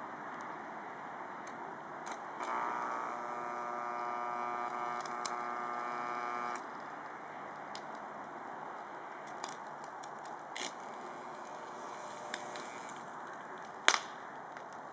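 Oil-burner blower motor's windings, energised with the rotor out, overheating and burning out: scattered crackles and ticks, with a steady electrical hum for about four seconds a couple of seconds in. A sharp crack near the end as the smoking windings burst into flame.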